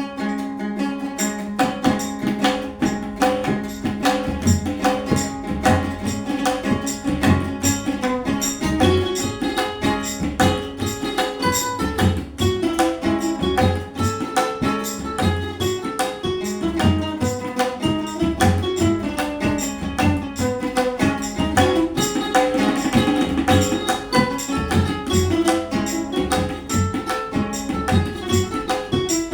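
Ukulele playing a melody over a tabla rhythm, with a steady held drone underneath.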